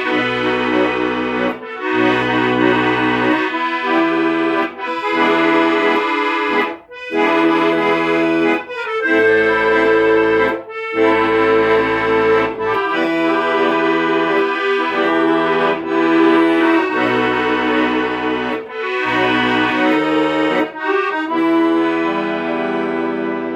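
Solo accordion playing an instrumental melody in sustained reed tones, over a bass part that sounds in short repeated blocks.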